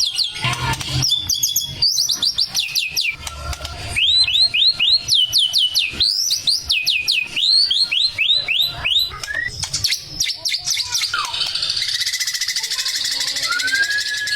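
Male white-rumped shama (murai batu) singing: rapid runs of sweeping whistled notes in repeated bursts. About twelve seconds in it turns to a harsh, buzzy rasp, with one rising-and-falling whistle near the end.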